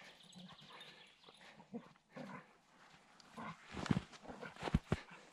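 A Labrador retriever's faint playful noises as it romps with a person in the snow, then from about four seconds in a few sharp steps in the snow.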